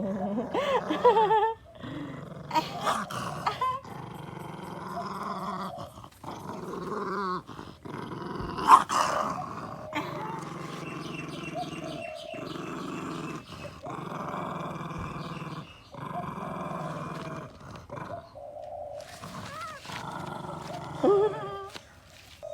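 Small dog growling in long, low rumbles, one after another, guarding its chew treat from a parrot. A sharp knock about nine seconds in is the loudest sound.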